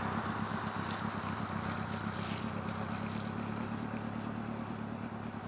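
Vehicle engine running steadily at cruising speed, a low even hum mixed with tyre and road noise.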